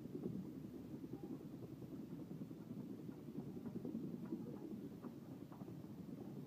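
Wheelchair wheels rolling and footsteps over wooden dock planks: a steady low rattle of many small knocks.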